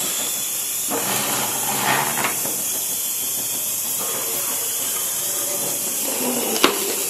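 Automotive hoist lowering under the weight of a van, its release valve letting out a loud, steady hiss. A single sharp crack near the end as the lift arm bears down on a metal chair.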